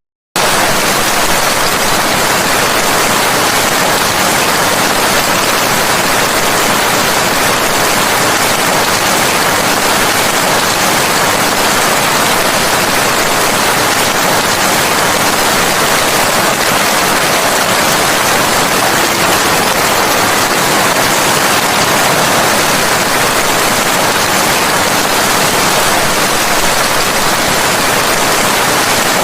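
Steady heavy rain: a dense, even hiss with no separate drops or thunder standing out. It cuts out for a split second at the very start, then runs on unchanged.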